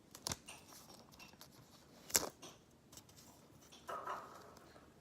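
AirPods charging case and its plastic film being handled: scattered small clicks and soft rustles, with one sharper click about two seconds in and a brief rustle near four seconds.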